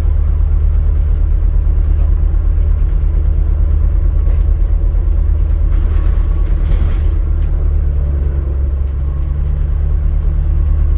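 Steady low rumble inside an ADL Enviro400 MMC hybrid double-decker bus as it runs, with a faint steady whine, and a brief hiss about seven seconds in.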